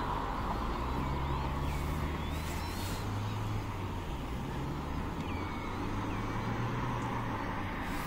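Low steady engine drone that holds for most of the clip over a constant hiss, with a few faint, short bird whistles above it.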